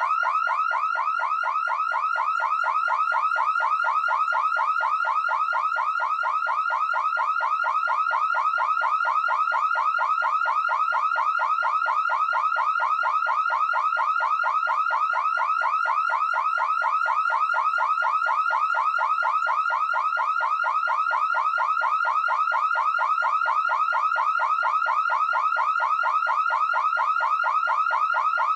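Car alarm siren sounding continuously, repeating the same fast rising chirp several times a second.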